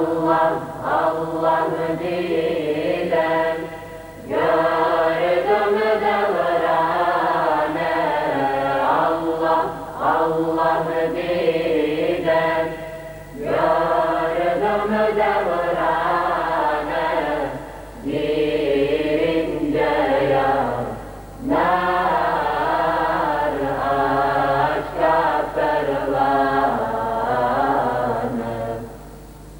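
Male choir singing a Bosnian Islamic devotional hymn unaccompanied, in long phrases broken by short pauses for breath. A steady low hum runs underneath.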